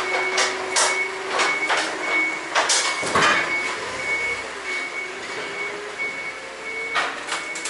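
Forklift backup alarm beeping steadily as the forklift reverses out of a trailer, with a low machine hum beneath. Several sharp clanks come through, the loudest about three seconds in.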